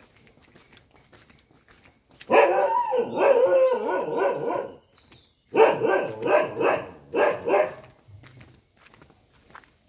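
Dog barking loudly in two bouts: a dense run of barks starting about two seconds in, then a string of about six separate barks, a few per second.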